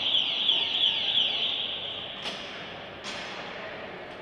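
An electronic alarm tone: a steady high note with quick falling chirps about three a second, fading out about a second and a half in. Then two sharp knocks, about two and three seconds in.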